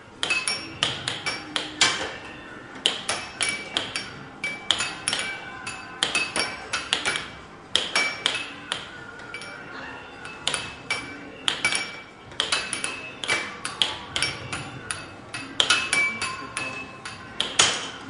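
Air hockey played up close: irregular sharp clacks of the puck struck by the mallets and knocking around the table, roughly two to four a second with short pauses, some with a brief ring.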